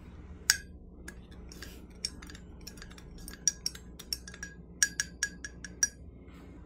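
Metal teaspoon clinking against the inside of a ceramic mug while sugar is stirred into coffee: one tap about half a second in, then a run of quick, uneven clinks for about five seconds.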